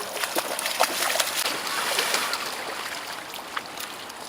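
Golden retriever puppies running and splashing through shallow river water, a rush of splashing with many small sharp splats that swells over the first two seconds.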